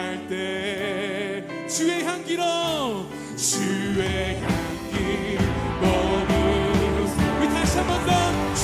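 A church worship band playing an instrumental interlude, with a wordless sung glide falling in pitch about two seconds in. Bass and drums come in about three and a half seconds in, and the full band plays on from there.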